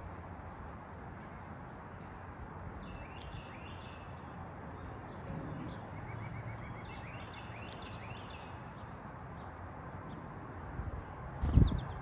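Small songbirds chirping with short calls and a brief fast trill, over a steady background rumble. A loud thump comes near the end.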